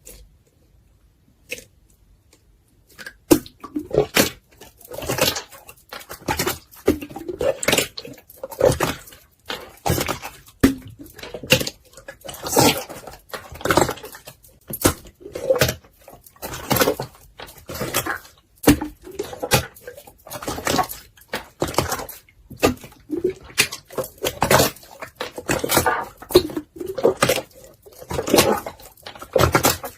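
Clear slime being pressed and stretched by hand: sticky, crackling clicks and squishes in bursts about once a second, starting a few seconds in.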